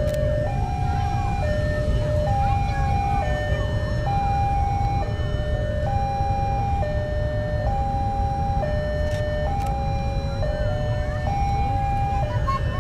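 Railway level-crossing warning alarm sounding: two electronic tones alternate high and low, each held for about a second, over a steady low rumble.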